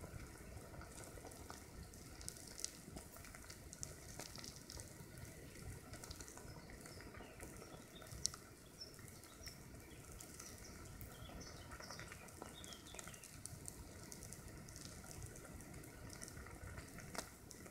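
Faint, dense crackling sizzle of thousands of wood ants crawling over the dry needles of their mound, a continuous spatter of tiny ticks. One sharper click stands out about eight seconds in.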